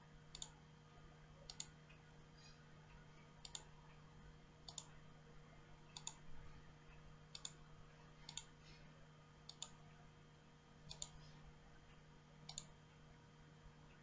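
Faint computer mouse clicks, about ten spaced a second or so apart, some sounding doubled, as wires are clicked into place in a circuit drawing, over a low steady hum.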